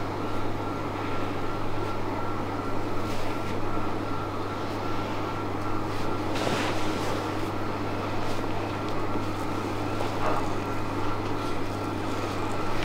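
Steady mechanical whir with a constant low hum and a thin high tone, and a few faint ticks over it.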